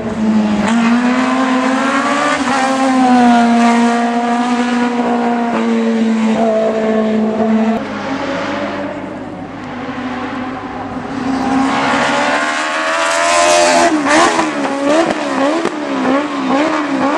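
Race car engine at high revs on a hill climb: a car's engine is heard held at a steady high pitch for several seconds, then fades. A car comes in again about twelve seconds in, its pitch rising and then wavering quickly up and down as the throttle is worked through the hairpin.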